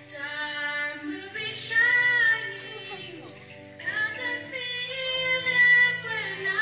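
Background song: a high singing voice holds long notes over a soft, steady accompaniment, in two phrases with a short gap about halfway through.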